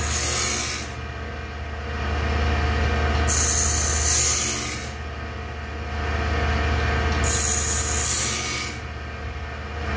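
Cook's Cat Claw bandsaw blade sharpener running: a steady electric-motor hum, with the grinding wheel hissing against the blade three times, each grind about a second and a half long and about four seconds apart, as the machine works slowly from one tooth to the next, grinding the tooth face and gullet.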